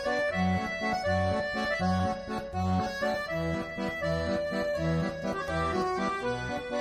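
Instrumental background music led by an accordion, with sustained chords over a steady, regular bass line.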